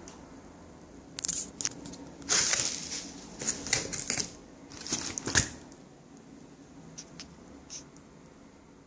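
Parcel packaging being opened by hand: rustling, crinkling and tearing in a busy run of bursts and clicks from about a second in, ending with a sharp knock about five and a half seconds in, then only a few faint ticks.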